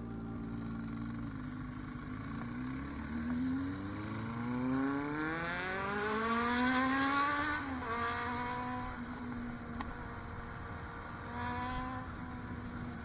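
Suzuki GN125 single-cylinder four-stroke engine pulling away from a standstill and accelerating through the gears. Its pitch climbs for several seconds, drops sharply about eight seconds in, then settles to a steady run with a brief rise near the end.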